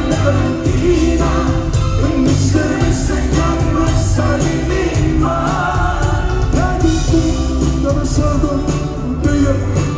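Live Mexican grupera band playing a song: a lead vocal over electric guitar and bass guitar.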